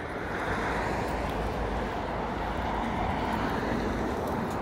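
Steady road traffic noise, an even rushing with no distinct engine note or horn.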